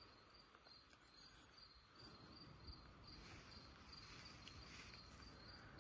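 Faint insect chirping, likely a cricket: one high chirp repeating evenly about two to three times a second over a low outdoor hiss.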